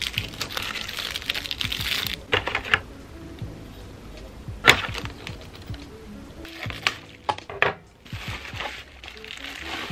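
Plastic bags and bubble wrap crinkling as packaging is handled, in the first two seconds and again near the end, with several sharp taps and knocks of cardboard and plastic parts in between, over soft background music.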